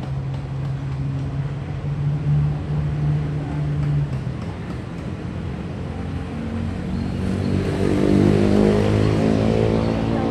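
Motor vehicle engines running in street traffic: a steady engine hum at first, then a louder engine about seven seconds in that swells and eases off near the end.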